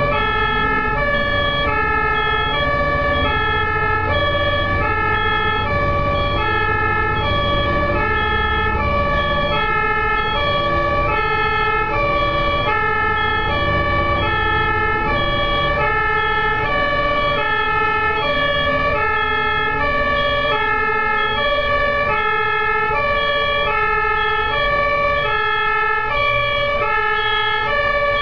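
Ambulance two-tone hi-lo siren, alternating steadily between two pitches, with engine and road rumble from traffic underneath.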